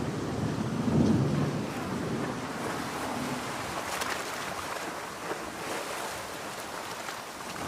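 Steady heavy rain with a low roll of thunder, loudest about a second in and fading away over the next couple of seconds.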